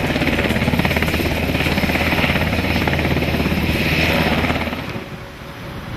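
HH-60 Pave Hawk (Black Hawk-family) military helicopter sitting on the ground with its rotors turning, giving a steady, rapid beat of blade slap over the turbine's hum. The sound drops away about five seconds in.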